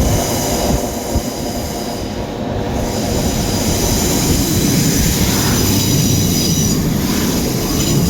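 A train passing through a station at speed: a loud continuous rumble with a thin, high steady whine over it.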